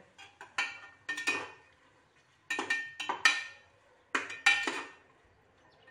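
Metal spoon stirring onions and freshly added tomatoes in an open pressure cooker, clanking against the pot in clusters of sharp strikes, each with a brief metallic ring.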